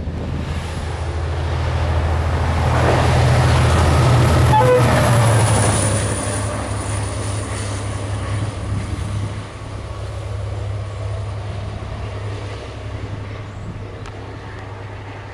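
GM 071 class diesel locomotive running light engine past at speed. The deep drone of its EMD two-stroke V12 is loudest about four to five seconds in, then fades as the locomotive draws away, with a thin high whine above it.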